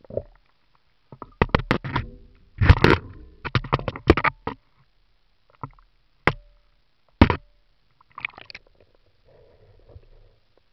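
Water splashing and sloshing as a handheld camera is lifted out through the stream's surface and dipped back under, with a rapid string of sharp knocks from handling the camera housing in the first half and a few single knocks later.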